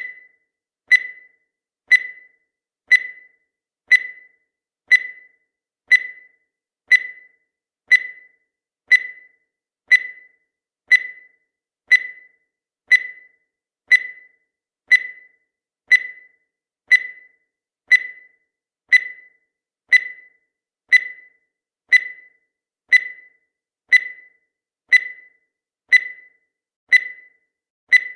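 Countdown timer sound effect: a short, high-pitched beep once every second, each one dying away quickly.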